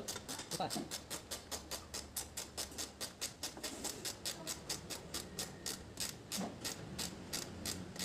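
Ratchet wrench clicking steadily, about five clicks a second, as it turns a bolt on a washing machine's motor and gearbox mount.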